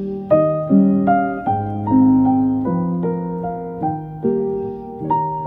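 Background music: a slow piano piece, each note struck and left to ring as the next comes in.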